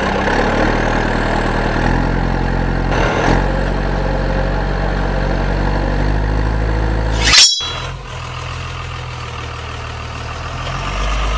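Heavy truck engine sound, running steadily with small shifts in pitch. A brief loud burst comes about seven seconds in, after which the engine sound continues more quietly.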